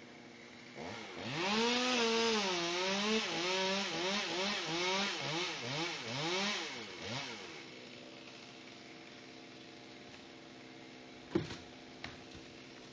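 Chainsaw running at high speed and cutting wood for about six seconds, its engine pitch dipping and rising over and over under the load of the cut, then dropping back to a steady idle. Near the end come two sharp knocks.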